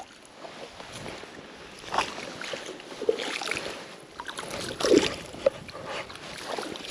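Footsteps splashing and sloshing through shallow water and wet marsh, in irregular bursts, the loudest about five seconds in.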